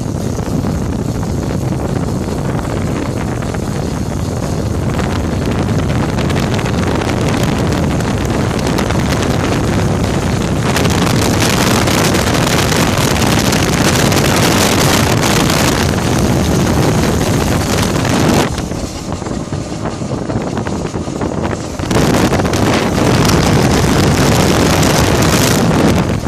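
Honda Africa Twin motorcycle under way, its engine and transmission running steadily, recorded close to the gearbox, whose noise the owner takes for a noisy transmission. Heavy wind buffets the microphone, swelling about eleven seconds in, easing for a few seconds past the middle and then returning.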